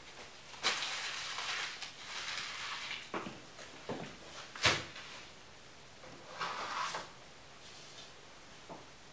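Footsteps and things being handled at a table: a rustle, a few light knocks, then a sharp knock about halfway through, which is the loudest sound, and a second short rustle.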